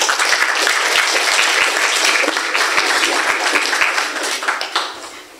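Audience applauding, many hands clapping at once; it thins out and dies away near the end.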